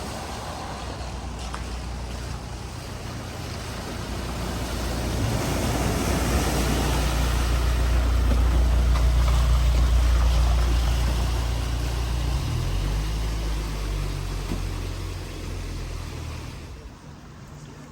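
A vehicle engine running steadily while the vehicle pushes through deep ford water, with the rush and splash of water building to loudest about ten seconds in and then fading away. The engine note changes about two-thirds of the way through.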